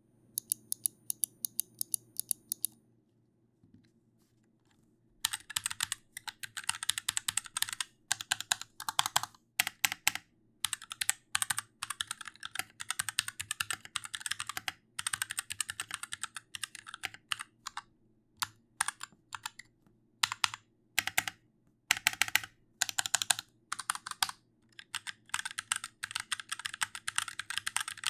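Typing on a computer keyboard: a quick, even run of key clicks for the first few seconds, a short pause, then bursts of typing with brief stops between them.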